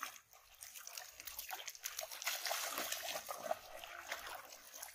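Water splashing and trickling as a triangular push net is worked and lifted through shallow muddy water, with a dense crackle of many small splashes.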